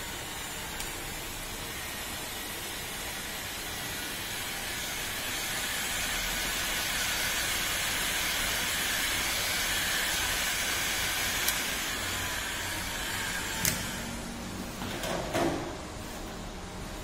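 Bosch heat gun blowing hot air onto a plastic car bumper: a steady fan rush and hiss that cuts off with a click about fourteen seconds in, followed by a few knocks as the gun is set down in the tool tray.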